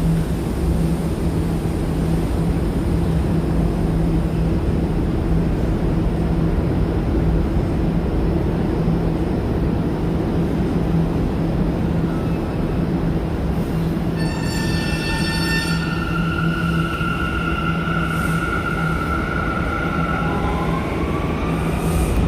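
An R179 subway train on the A line, with a steady low hum and rumble while it stands at the platform. About two-thirds of the way through, a brief high pitched multi-tone sound comes in. A steady whine follows that begins rising near the end as the train starts to pull away.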